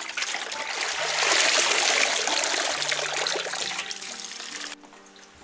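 Water splashing and swishing in a metal basin as leafy mustard greens are washed by hand. It swells about a second in and cuts off shortly before the end.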